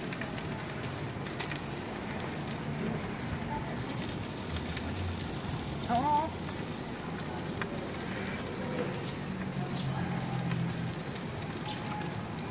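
Pork sausages sizzling and crackling on a charcoal grill, a steady hiss with small pops. A brief sliding high tone cuts through about six seconds in.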